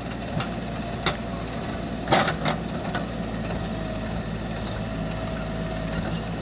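Diesel engines of a JCB 3DX backhoe loader and a standing Mahindra 575 DI tractor running steadily while the backhoe's steel bucket digs into soil, with a few sharp knocks about one and two seconds in.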